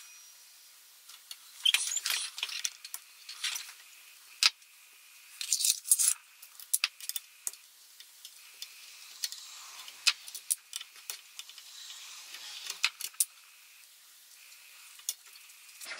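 Scattered light clicks, taps and scrapes of a small screwdriver working against the oil rain lamp's pump and its plastic outlet fitting, as the fitting and tubing are pried loose.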